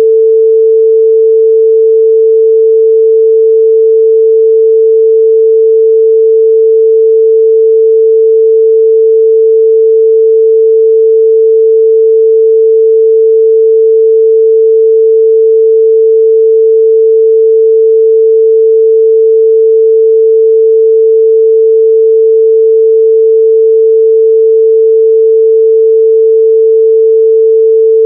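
A steady, pure 445 Hz sine-wave test tone, one unchanging pitch held at a constant loud level.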